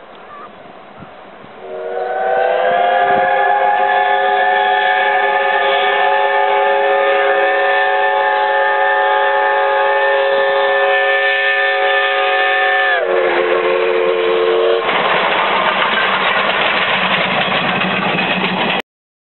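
Steam whistles of a double-headed steam train, the tank locomotives C11 325 and C12 66, sounding one long blast of about eleven seconds, several tones together. The pitch then drops for a shorter, lower blast of about two seconds. After that the passing train gives a loud, even rushing noise, which cuts off suddenly near the end.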